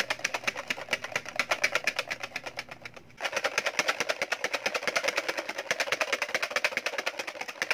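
Hand whisk beating dalgona coffee mixture in a bowl, the whisk clicking quickly and steadily against the bowl's sides, with a brief pause about three seconds in.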